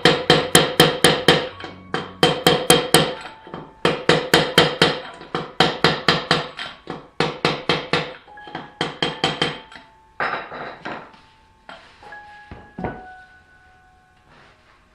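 Hammer blows on metal in rapid bursts of several strikes, about five a second with short pauses between bursts, thinning to a few last taps. Background music plays along.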